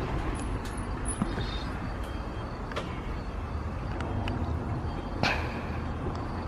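Steady low outdoor rumble, with a few faint clicks and a sharper knock about five seconds in.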